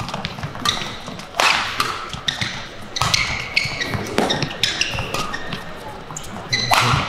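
Badminton rally: sharp cracks of rackets hitting the shuttlecock about once a second, with shoes squeaking and feet thudding on the court.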